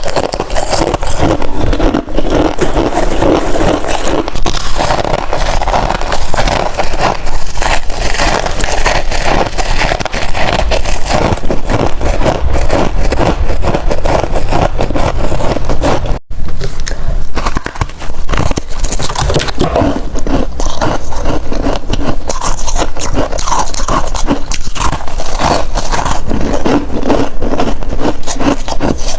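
Close-miked crunching and chewing of freezer frost: a loud, dense stream of crackling bites and crunches. There is a brief break about sixteen seconds in, then the crunching resumes on crisper sheets of frost.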